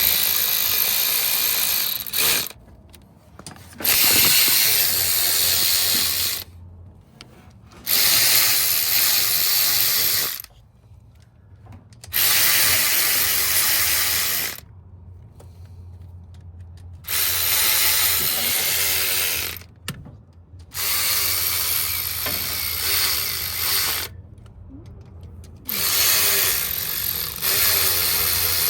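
Cordless 1/4-inch battery ratchet spinning in seven runs of about two seconds each, with short pauses between, running the rocker arm bolts down on an LS engine.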